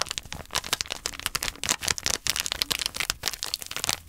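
Samyang Ramen soup powder shaken from a foil seasoning packet, pattering in dense, irregular fine ticks onto crisp fried-ramen-coated corndogs, with light crinkling of the packet.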